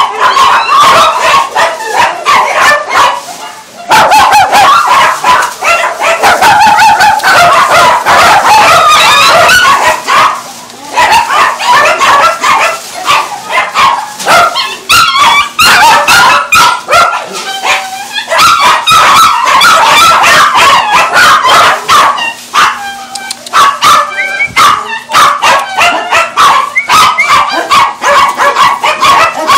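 Many dogs in wire kennel cages barking and yipping over one another, loud and nearly continuous, with a few brief lulls.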